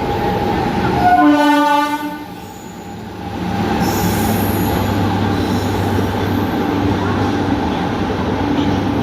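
Train horn sounding once for about a second, a little after the start, then a train running past at speed with a steady rumble and a low hum.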